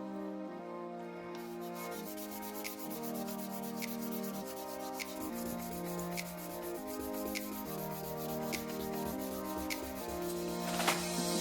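Background music of sustained chords that change every second or so, over a steady scratchy rubbing noise of sandpaper sanding that starts about a second and a half in.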